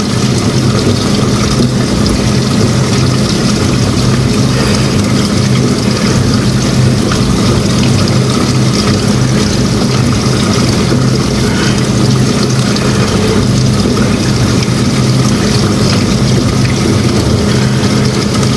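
A machine motor running steadily with a constant low hum, unchanging throughout.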